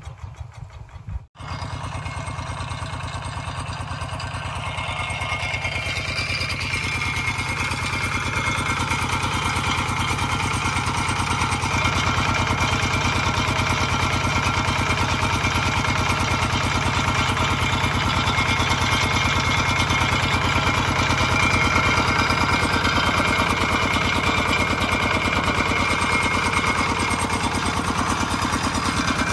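Single-cylinder diesel engine of a two-wheel walking tractor running steadily under load, driving a shaft-coupled water pump that is draining a fish pond. After a brief cut-out about a second in, the engine grows louder over several seconds and then holds steady.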